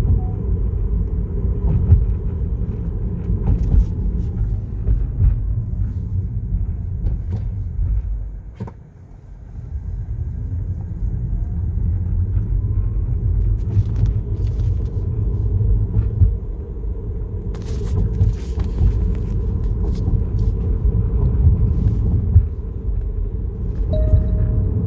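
Tesla Model 3 heard from inside the cabin while driving: a steady low road rumble with scattered sharp clicks and rattles, which the owner puts down to vibration in the driver's-side console. The rumble dips briefly about a third of the way in, and a short beep sounds near the end.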